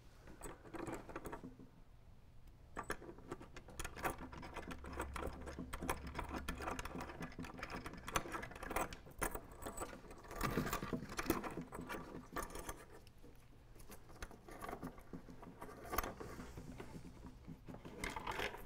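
A short length of chain taped to a sash rope rattles and scrapes as it is fed over the pulley and down into the weight pocket of a double-hung window frame: irregular small clicks and jangles, with a low hum for a few seconds near the middle.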